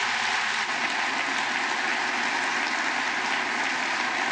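Large audience applauding steadily: the chamber of a joint session of Congress clapping after a line in a speech.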